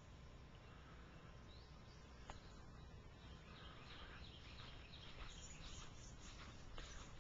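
Near-silent outdoor ambience: a faint low background rumble, with faint short high chirps from about four seconds in.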